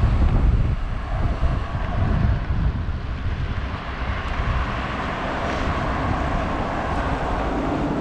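Wind rushing over the microphone of a cyclist's action camera while riding, a steady low rumble, with the sound of road traffic close by.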